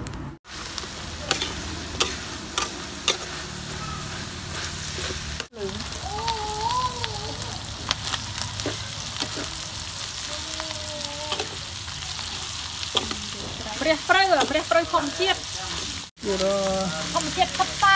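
Duck meat and basil leaves sizzling in a wok while a metal spatula stirs and scrapes them, with sharp clicks of the spatula against the pan. The sizzle breaks off briefly twice. A few short pitched calls sound in the background, the loudest near the end.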